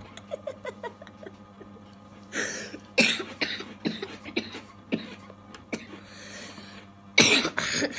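A boy's short, cough-like bursts of breath as he tries to hold back laughter: two close together in the middle and a louder one near the end. Small clicks fall between them over a steady low hum.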